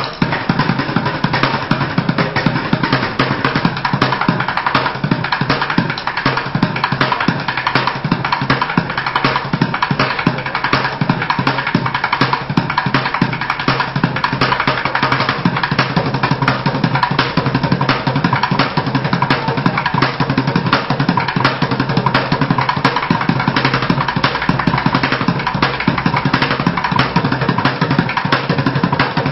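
Street drummer playing fast, unbroken drumming: rapid strikes, many a second, with no pause.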